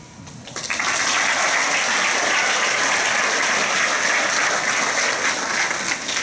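Audience applauding: a steady spell of clapping that starts about half a second in and dies down near the end.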